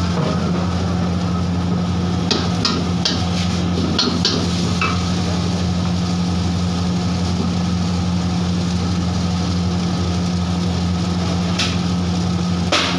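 A steady low motor hum with a few light clicks, a cluster about two to four seconds in and two more near the end.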